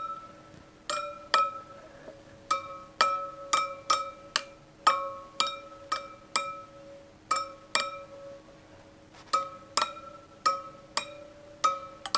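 A screwdriver taps the spokes of a Harley-Davidson Pan America's spoked rear wheel one after another, about two sharp metallic taps a second. Each tap rings briefly with a clear tone whose pitch shifts a little from spoke to spoke. This is a tension check: a spoke that sounds dull instead of ringing is loose.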